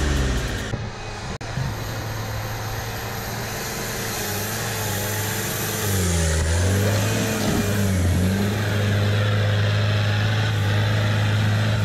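Engine of a lifted Toyota Hilux pickup running steadily at low revs while crawling on snow, dipping briefly about six seconds in and then picking back up.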